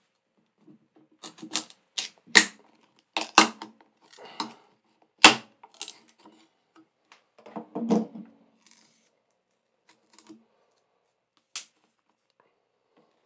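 Wooden block splitting along the grain as a pocket knife blade is wedged in and levered: a run of sharp cracks and pops, the loudest about two and a half and five seconds in, as a long sliver breaks away. Softer knocks of wood being handled follow, with a last click near the end.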